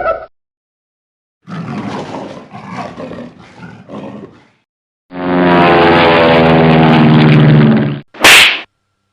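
A string of comedy sound effects. First a rough, uneven stretch that fades out over about three seconds. Then a loud, steady, low-pitched roar lasting about three seconds. It ends with a single sharp slap-like crack.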